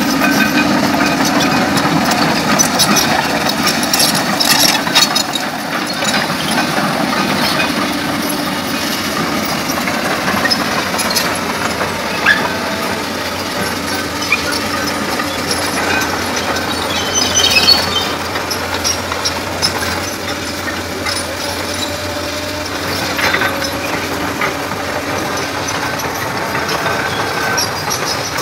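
Komatsu PC200 hydraulic excavator running, its diesel engine a steady drone with scattered metallic clanks and rattles throughout.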